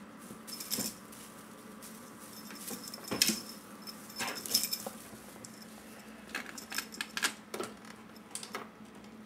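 Small bell jingling and foil tinsel rustling in irregular short bursts as a kitten bats and wrestles a tinsel wand toy. The loudest burst comes about three seconds in.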